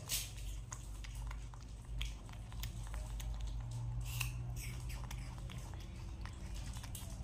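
A young monkey biting and chewing pieces of fruit, small sharp clicks and crunches coming at irregular moments, over a steady low hum.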